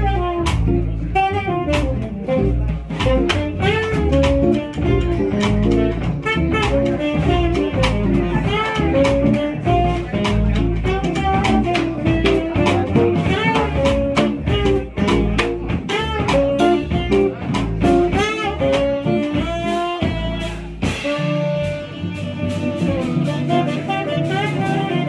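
Live jazz combo playing: an archtop guitar strumming chords under a saxophone lead line, with bass and drum kit cymbals keeping time. Near the end the busy line gives way to longer held notes.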